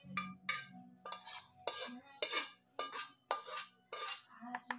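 A metal utensil scraping the inside of an aluminium pan to clear out cooked noodles, in short strokes about two a second.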